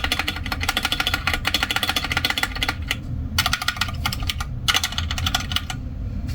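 Fast typing on a Magegee Star 61 mechanical keyboard with red switches: a dense run of key clacks, breaking off briefly about three seconds in and again near five seconds, over a steady low hum.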